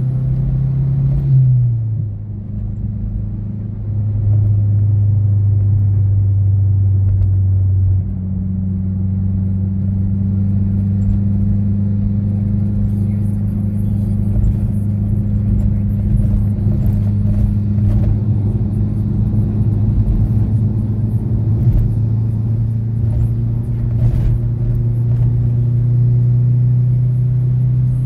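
Turbocharged four-cylinder engine and 3-inch exhaust with an Apexi N1 muffler, a Mazdaspeed6 engine in a Mazda6, droning steadily from inside the cabin while the car cruises, over a low tyre and road rumble. The engine note drops in pitch and briefly eases about a second and a half in, then holds steady, with a second, higher drone joining about a third of the way through.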